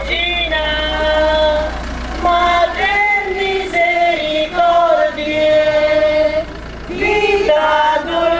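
A woman's voice singing a slow hymn in long held notes, with other voices joining in.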